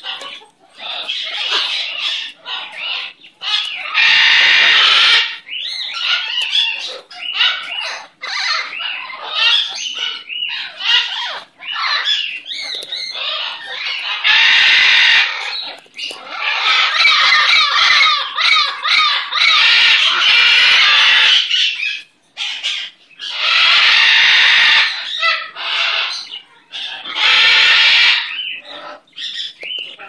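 Scarlet macaw making a continual run of chattering calls, rising several times into loud stretches of a second or more, the longest about four seconds. The chatter of a contented, happy bird.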